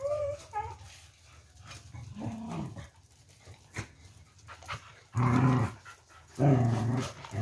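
Dogs growling close by: a short whine at the start, a low grumble, then two loud growls about a second apart near the end, with a few sharp clicks in between.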